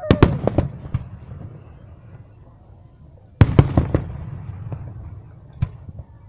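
Aerial fireworks going off. There are two sharp bangs at the start, followed by a few smaller pops, then a louder cluster of bangs about three and a half seconds in and one more bang near the end, with a rumbling echo in between.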